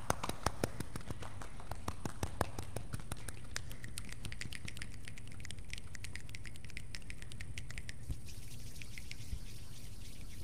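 A group making a 'rainstorm' with their hands on its way back down: a few light claps at first, then many scattered finger snaps like raindrops. About eight seconds in the snaps stop and a soft, steady hiss of palms rubbing together remains.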